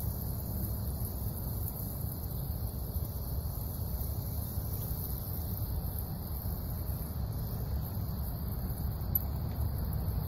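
Trapped rainwater draining steadily out of a pickup truck's passenger-door drain hole and splashing onto the ground, an even, unbroken run of water.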